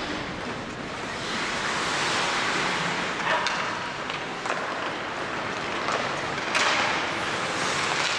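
Ice hockey play in an arena: skate blades scraping and carving the ice in a steady hiss that swells and fades, with a few sharp clacks of sticks hitting the puck.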